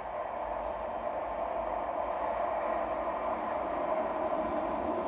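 Berlin U-Bahn train approaching through the tunnel, a steady rail rumble that grows slowly louder as it nears the platform.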